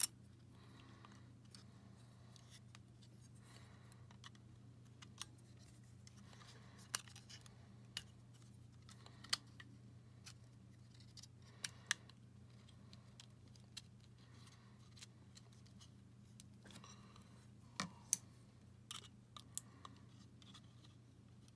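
Small metal tools, tweezers and a flat pry tool, clicking and scraping against a GoPro camera's metal frame and battery-holder shielding as a part is worked loose. There are a dozen or more faint, separate clicks at uneven intervals over a steady low hum.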